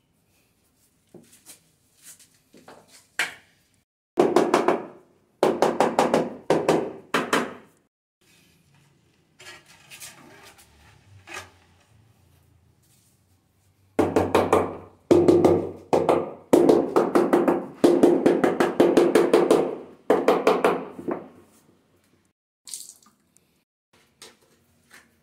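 Steel trowel scraping and spreading tile mortar on a concrete floor, in rapid strokes. There is one spell a few seconds in and a longer one past the middle, with scattered knocks between.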